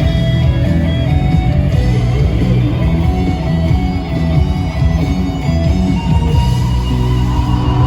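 Live rock band playing loud, with electric guitar strumming over bass and drums.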